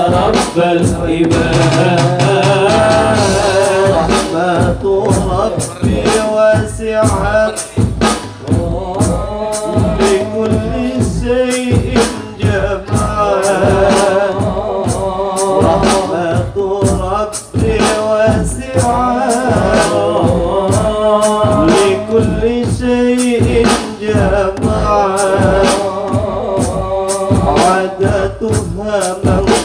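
Group of men singing Islamic devotional songs (sholawat) together into microphones over a PA system, with a steady beat behind the voices.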